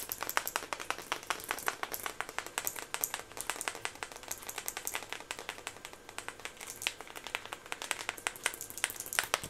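Quick, irregular tapping and clicking of a small plastic tube dabbed against a plastic stencil held close to the microphone, several taps a second throughout.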